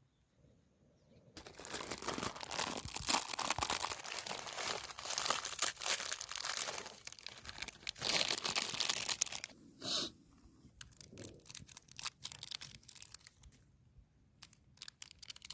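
Plastic instant-noodle packet crinkling and tearing as it is handled and opened, dense for about eight seconds, then a few scattered crackles.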